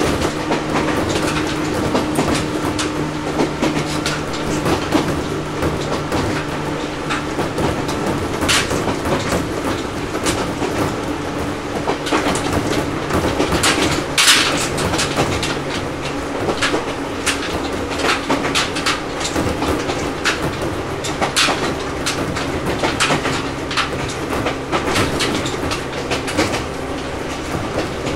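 Cabin running sound of an Ohmi Railway 800 series electric car (motor car MoHa 1809) under way: a steady running hum that drops slightly in pitch around the middle, with wheels clacking irregularly over rail joints, one clack louder about halfway through.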